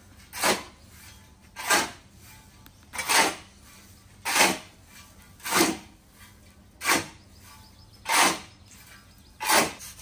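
A metal shovel scraping over a concrete floor and through a heap of dry pig feed as it is mixed by hand. About eight short scrapes come at an even pace, a little over a second apart.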